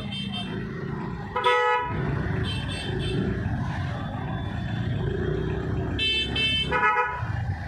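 Vehicle horns honking in congested street traffic: several short honks of different pitches, the loudest about a second and a half in and a quick cluster near the end, over the steady low rumble of motorcycle and scooter engines.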